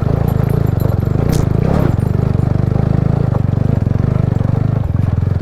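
TVS Apache RTR 200's single-cylinder engine running at low revs, with a brief clatter about a second and a half in and a change in the engine note near the end.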